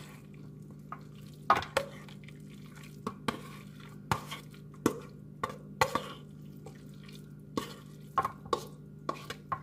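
A utensil scraping and knocking against a bowl as a thick turkey and vegetable filling is scooped out into a pan: about a dozen irregular clinks and scrapes, over a steady low hum.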